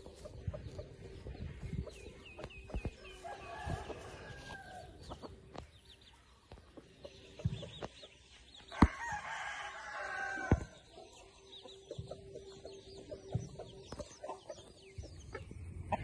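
Rooster crowing: a shorter call a few seconds in, then a louder crow of about a second and a half near the middle. Sharp knocks are scattered throughout, the loudest one right as the crow begins.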